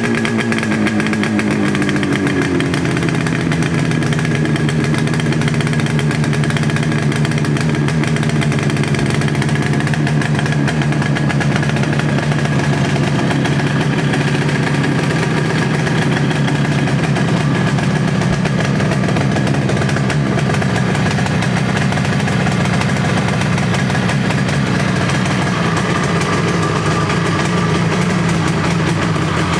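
Yamaha RD350's two-stroke twin-cylinder engine running, its revs falling over the first couple of seconds and then settling into a steady idle.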